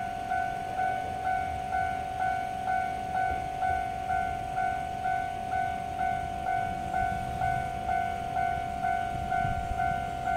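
Japanese railway level-crossing warning bell ringing steadily, about two dings a second, warning of an approaching train. Under it, the low rumble of the narrow-gauge electric train grows in the second half as the train draws near.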